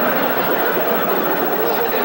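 Studio audience laughing together at a punchline.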